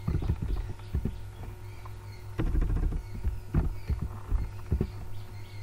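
A few dull taps of computer keyboard keys, in irregular groups, as a word is typed. A steady low hum runs underneath.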